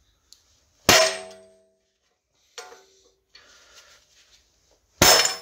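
Two heavy hammer blows on a seized front wheel hub, about four seconds apart, each clanging and ringing briefly, with a lighter metallic knock between them.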